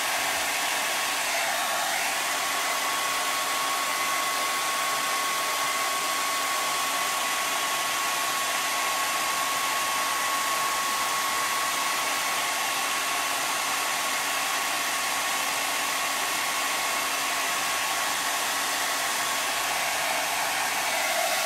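Handheld blow dryer running steadily on heat, a rush of air with a thin steady whine over it.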